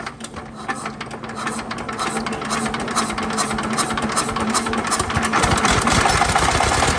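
Changchai single-cylinder diesel engine starting on its newly fitted electric starter and running with a rapid, even knocking beat, growing steadily louder.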